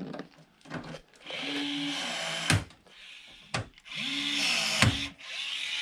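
Milwaukee cordless rivet gun setting two rivets: each time its motor runs with a steady whine for about a second and ends in a sharp snap as the mandrel breaks off. The motor runs once more near the end.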